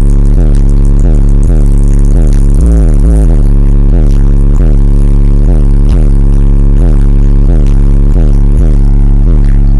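Bass-heavy music played very loud through two 15-inch Power Acoustik MOFO subwoofers in a slot-ported box. A deep droning bass note pulses in a steady rhythm a few times a second, loud enough to overload the recording.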